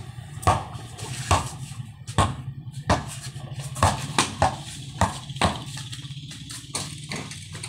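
A basketball bouncing on a concrete court: a series of sharp dribbles, roughly one a second, coming quicker around four seconds in.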